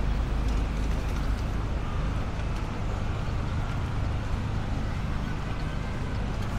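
Steady outdoor city ambience: a continuous low rumble of road traffic.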